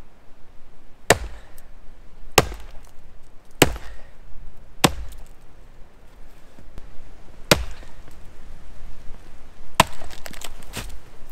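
An axe chopping wood: about seven sharp, separate strikes, the first four at an even pace of just over a second apart, then a few more after a pause.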